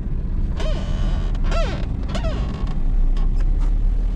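Steady low road rumble of a moving car. In the first half come three short squeaks or creaks that rise and fall in pitch, and a few faint clicks follow later.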